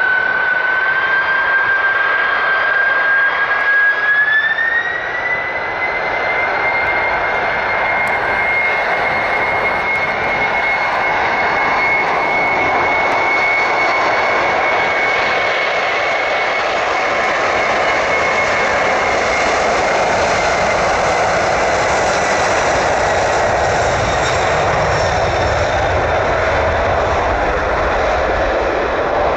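Boeing 747 freighter's four jet engines at take-off power during the take-off roll. A high fan whine climbs in pitch about four to six seconds in and then holds over a steady jet rush, with a deeper rumble building near the end as the aircraft rotates.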